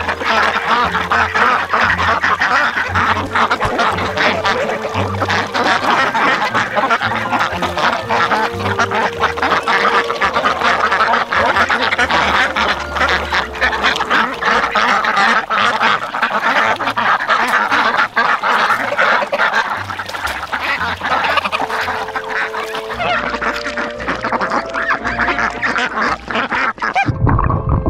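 A flock of domestic ducks quacking constantly and all at once while they feed close around the camera, with short pecking and jostling noises mixed in. Near the end the sound turns dull and muffled, and a few notes of background music come through.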